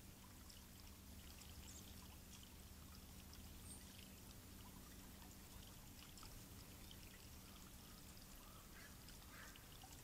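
Faint, steady trickle of water spilling down a stone column fountain into its basin.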